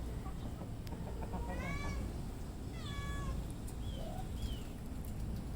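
A cat meowing: two clear, high-pitched meows about one and a half and three seconds in, then two short faint ones.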